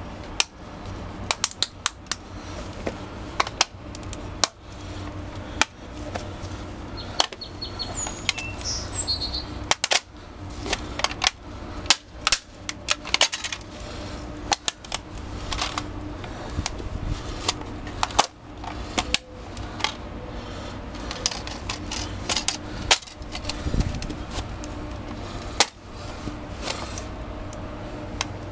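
Plastic CD case crunching and cracking under a Red Wing work boot as it is stomped and ground into pieces: a long run of irregular sharp snaps, some single and some in quick clusters.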